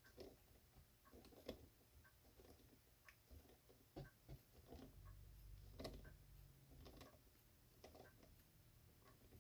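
Faint, irregular clicks and creaks of a Phillips screwdriver slowly turning a large washer screw into a model stand; the screw is a tight, hard fit.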